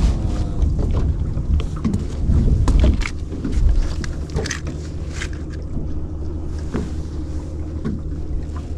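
Fishing boat's engine running steadily, with wind on the microphone and scattered sharp clicks and knocks.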